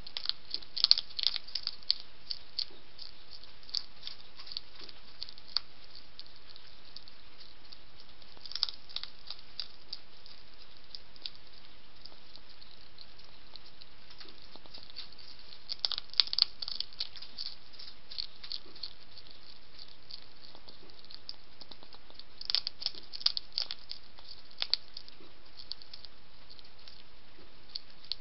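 Hedgehog crunching and chewing dry kibble from a dish: bursts of sharp crunching clicks come in clusters about a second in, around eight seconds, around sixteen seconds and between twenty-two and twenty-five seconds. A steady hiss runs underneath.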